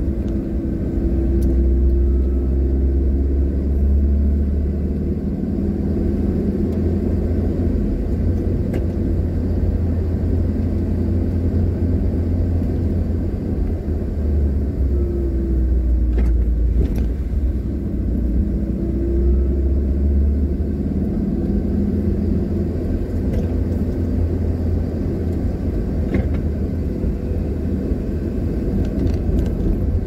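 Car engine and road rumble heard from inside the cabin while driving, a steady low drone whose engine note rises and falls a few times.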